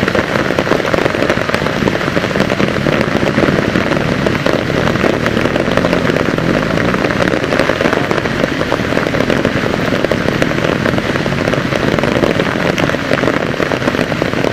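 Torrential rain pattering hard and steadily on the foliage, a dense crackle of drops.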